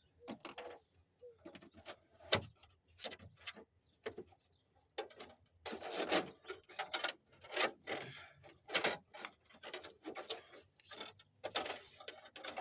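Irregular clicks, light knocks and rubbing scrapes of hands handling a wire and tools in a truck's engine bay, getting busier and louder about halfway through.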